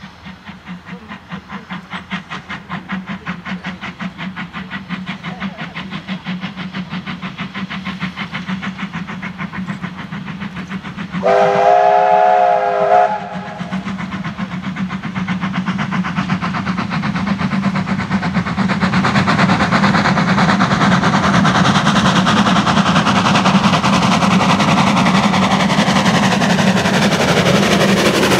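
4-8-0 steam locomotive T251 working toward and past the listener, its rapid, even exhaust beats growing steadily louder. About eleven seconds in it blows its whistle, a chord held for about two seconds, and the sound is at its loudest near the end as the engine draws alongside.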